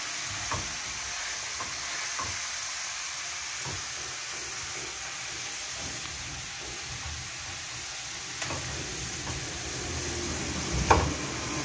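Potato sticks deep-frying in hot ghee in a steel pan: a steady sizzle, the fries already turned golden. A few light clicks of a metal spatula stirring against the pan, and a louder knock near the end.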